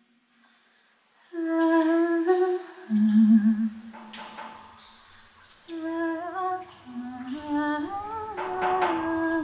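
A voice humming a slow, wordless melody of held notes that step up and down in pitch. It starts about a second in, after a moment of near silence.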